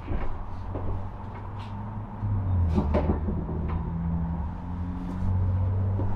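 A few sharp clicks and knocks, as of a cupboard door being opened and shut while a cloth is fetched, over a low rumble that swells twice.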